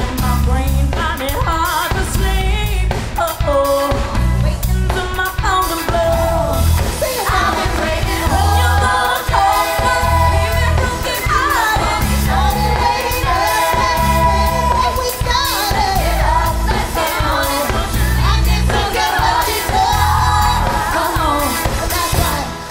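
Pop-rock song performed live: singing over a band with drums and bass keeping a steady beat.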